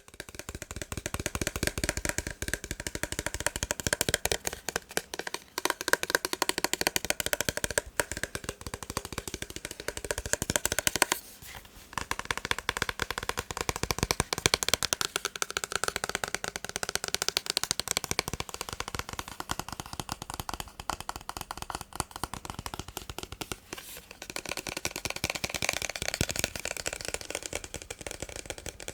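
Very fast, dense tapping on a massage gun, broken by a short pause about eleven seconds in.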